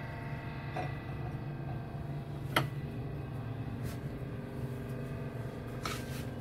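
Light taps and rustles of spring roll wrappers being peeled off a stack and handled on a plastic cutting board, over a steady background hum. The sharpest tap comes about two and a half seconds in.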